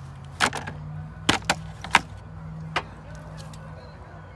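Engine idling steadily with a low, even hum, with several sharp clicks and knocks over it in the first three seconds.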